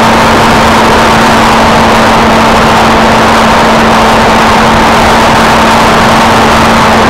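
Electric motor and pusher propeller of a ParkZone F-27C Stryker foam flying wing, picked up by the onboard camera in flight: a steady buzzing hum under heavy wind rush. The sound is loud enough to overload the microphone.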